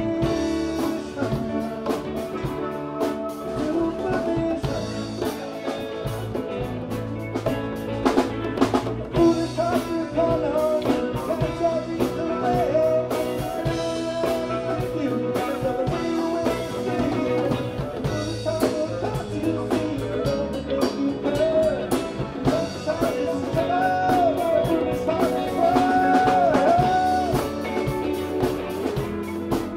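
Live rock band playing: electric guitars, bass guitar, drum kit and congas, with a sustained lead line whose notes bend up and down near the end.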